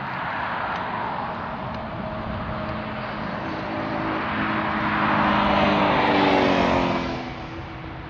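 A car passing by: a rush of tyre and engine noise that builds, peaks about six seconds in, then falls away quickly, its pitch dropping as it goes past.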